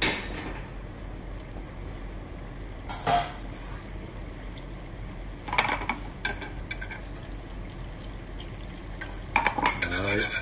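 Wire whisk clinking against a steel frying pan a few separate times, then whisking rapidly near the end, working butter into reduced red wine pan juices to thicken the sauce.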